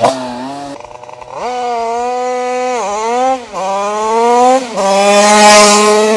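Two-stroke Minarelli AM6 engine of a Rieju MRT Pro 50 supermoto with a KRM double-outlet exhaust, revving hard as it accelerates up through the gears. Each shift is a short dip in pitch before it climbs again. It is loudest as the bike passes close by near the end.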